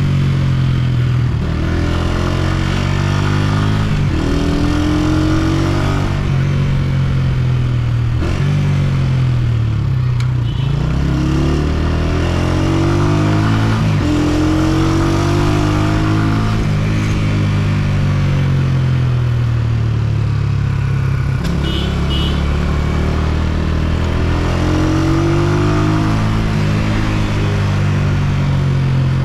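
Honda CG125's air-cooled single-cylinder four-stroke engine under way. Its note rises and drops again and again as the bike accelerates, shifts gear and eases off.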